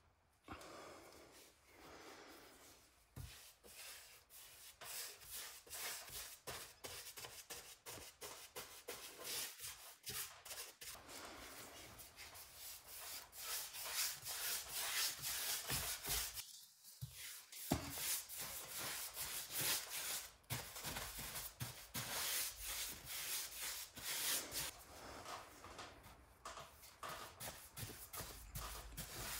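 Bristle brush strokes rubbing tung oil onto blue pine ceiling boards: a quick, repeated bristly scrubbing on bare wood, with a brief break about halfway through.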